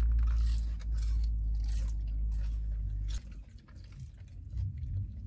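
Close-up chewing and crunching of crispy fried food, a run of short crunches over the first three seconds and fainter chewing after. A low rumble underneath cuts off suddenly about three seconds in.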